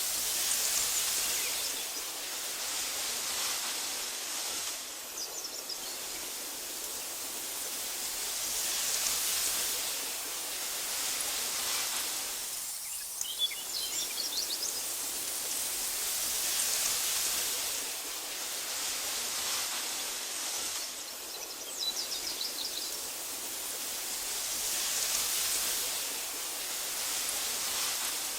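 Wind blowing through tall meadow grass, a soft rustling hiss that swells and eases in slow gusts every few seconds. A few faint, brief bird chirps come through it about five, thirteen and twenty-two seconds in.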